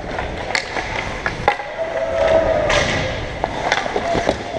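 Hockey skate blades scraping and carving on rink ice, with scattered sharp clacks of sticks and puck.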